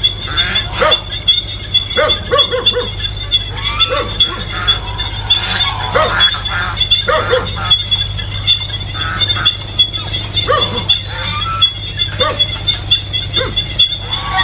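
Geese honking in short repeated calls, about one a second, over a steady high-pitched insect buzz.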